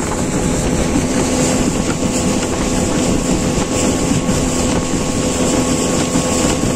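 Small boat's outboard motor running at a steady cruising speed, a constant hum, with water rushing past the hull.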